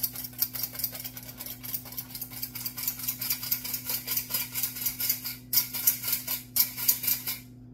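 Flour sifter being worked over a bowl: its wire agitator scrapes flour through the mesh in a fast, even rasping rhythm, several strokes a second, breaking up flour chunks. It pauses briefly twice near the end, then stops.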